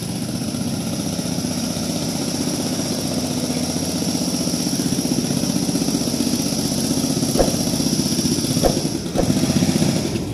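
A motorcycle engine running steadily and slowly growing louder, with a steady high whine above it and a few short knocks in the last few seconds.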